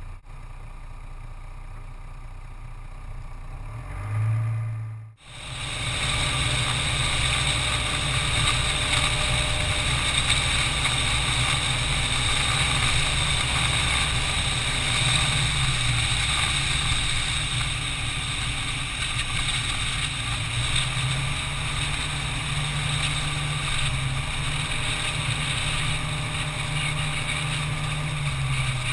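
Vehicle engine running steadily while driving, its pitch drifting up and down a little, with wind rush over the microphone. The first five seconds are quieter, with a brief louder swell about four seconds in and a sudden cut just after.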